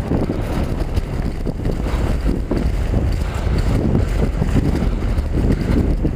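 Wind rushing over a helmet-mounted camera's microphone as a mountain bike rolls along, a low steady rumble with a few small knocks from the tyres and bike over boardwalk planks.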